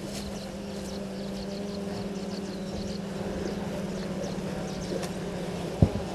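A steady low mechanical hum runs throughout, with small birds chirping repeatedly over it. A single sharp knock comes near the end, as elephants pass right by the camera post.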